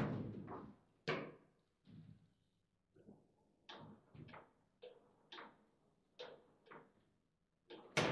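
Table football in play: the ball struck by the figures on the rods and knocking around the table as irregular sharp knocks, roughly two a second, with a louder run of hits near the end.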